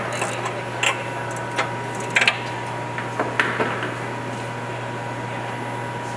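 Steady hum of room ventilation and equipment with a faint high tone, under a few light clicks and taps as hardware and a small hand tool are handled.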